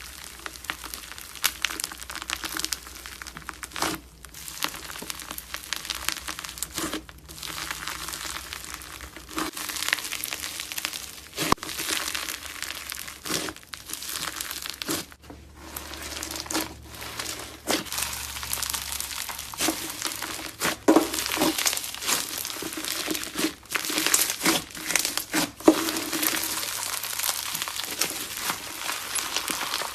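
Crunchy slime being squeezed and pressed by hand, giving dense crackling full of sharp little pops, in stretches broken by brief pauses every few seconds.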